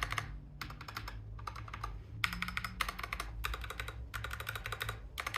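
Mechanical keyboard fitted with Akko Matcha Green and Cream Yellow linear switches being typed on in quick bursts of keystrokes with short pauses between. The two switch types sound practically the same.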